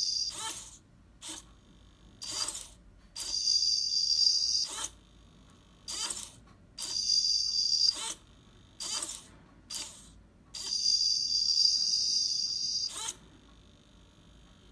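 Two hobby servos whirring with a high-pitched whine in about ten stop-start bursts, some a brief blip and some lasting two seconds or more. The repeated stop-start movement is the servos overshooting their target positions.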